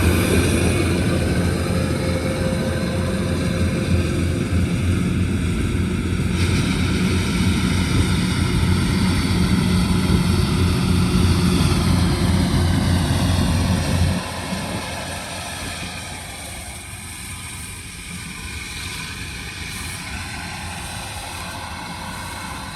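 Rice combine harvester running with a steady heavy engine rumble, which suddenly becomes much quieter about fourteen seconds in and goes on at a lower level with slowly shifting pitch.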